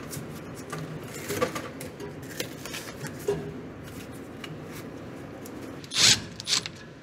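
Crinkly rustling and small clicks of black foam insulation being picked and pulled off copper refrigerant tubing at a walk-in cooler's evaporator coil. Near the end come two short, louder rasps, when a 5/16 nut driver goes onto a bracket screw.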